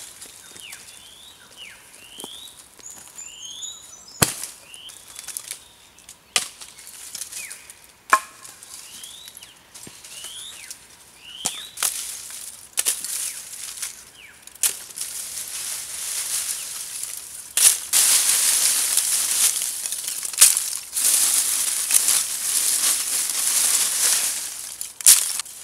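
Lumps of wood charcoal being dropped and loaded by hand into a clay furnace: scattered sharp clinks over the first half, then a long run of dense, crunching clatter as the charcoal is piled in and spread.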